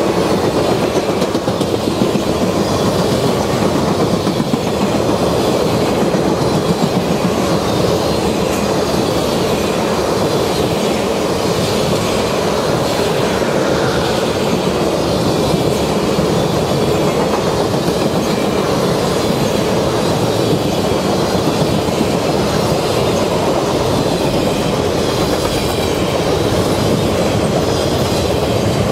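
Passenger cars and then flatcars loaded with trailers of a long circus train rolling past close by: a steady rumble with the wheels clicking over the rail joints.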